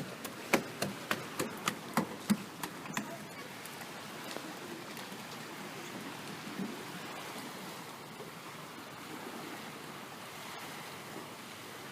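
Steady hiss of rain and water, opening with a run of sharp clicks, about three a second, that stops about three seconds in.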